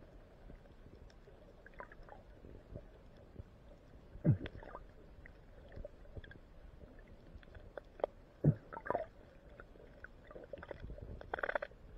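Muffled underwater sound picked up by a submerged camera: a faint steady water murmur with scattered small clicks, and two sharp knocks, about 4 and 8.5 seconds in, each dropping quickly in pitch. A short rush of noise comes near the end.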